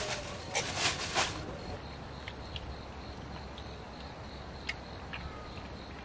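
Outdoor ambience with a steady high-pitched insect trill and a few short noisy bursts in the first second and a half.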